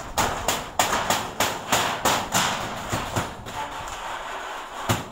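Hammering: a run of sharp hammer blows, about three a second, thinning out near the end.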